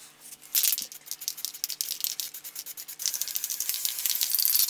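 Aerosol spray paint can being shaken, its mixing ball rattling rapidly, then a steady hiss of paint spraying from about three seconds in.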